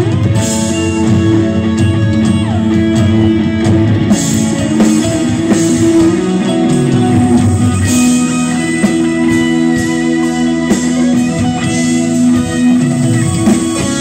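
Live pop-rock band playing an instrumental passage: electric guitar and bass guitar over a drum kit.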